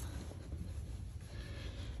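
Faint rubbing and rustling handling noise over a low steady rumble, with no distinct knocks or tones.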